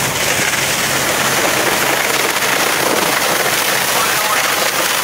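Fire hose nozzle putting a strong water stream onto a burning house: a loud, steady hiss of rushing and splashing water, with a faint low hum underneath.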